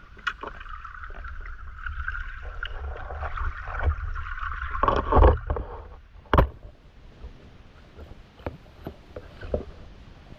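Underwater water noise picked up through an action-camera housing as the diver moves: a rushing hiss that swells for about five seconds, then one sharp click about six seconds in and a few fainter clicks after it.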